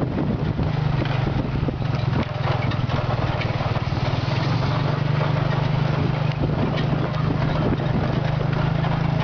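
Motorcycle engine pulling a tuk-tuk carriage, running steadily at low road speed, with the carriage rattling and knocking over a rough dirt road.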